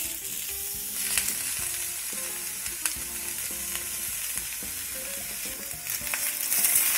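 Shiitake mushrooms and bok choy stems sizzling in hot oil in a wok, stirred with a spatula that scrapes the pan now and then. The sizzle grows louder near the end.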